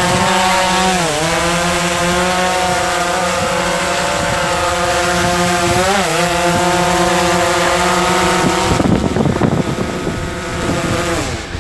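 DJI Phantom 3 Professional quadcopter's motors and propellers buzzing as it takes off and flies, the pitch steady with brief dips about a second in and around six seconds. From about nine seconds a loud rushing noise covers the buzz, and near the end the pitch drops.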